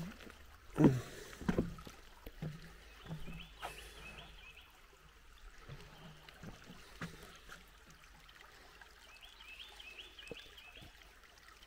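Quiet outdoor ambience with two heavy low thumps about a second in, like knocks on the microphone. A small bird's short repeated phrase is heard briefly at the start and again near the end.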